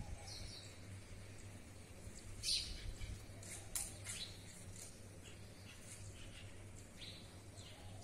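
Birds chirping: scattered short, high calls, the loudest about two and a half seconds in, over a faint steady low hum.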